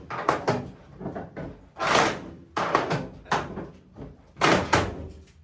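Irregular bangs and clanks of sheet steel as a rusted pickup bed side is knocked and worked loose, about half a dozen strikes with the loudest about two seconds in and near the end.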